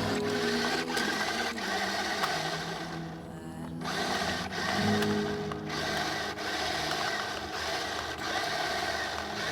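Toy RC truck's small electric motors and gearboxes whirring steadily, mixed with the toy's own synthetic engine sound effect from its speaker. The whirring drops away briefly about three seconds in, then picks up again.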